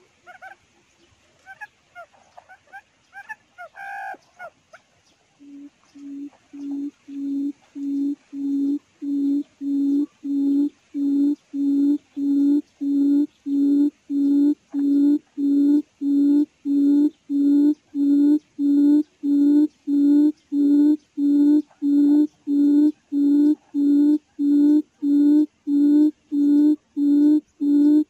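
Quail call used as a trap lure: a long, very even series of low hooting notes, about three every two seconds, starting a few seconds in and swelling to full loudness before holding steady. Faint short bird chirps come before it.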